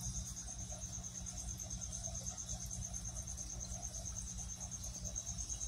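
A cricket chirping in a steady, high, rapidly pulsed trill without a break, over a low steady hum.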